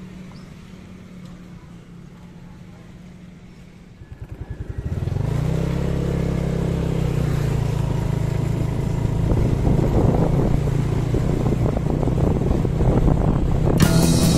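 Tour bus diesel engine: faint and low at first, then about four seconds in a throbbing builds quickly into a loud, steady engine drone as the bus moves close by. Music starts near the end.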